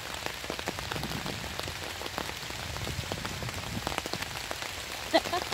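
Steady rain, the drops ticking on an umbrella held just overhead.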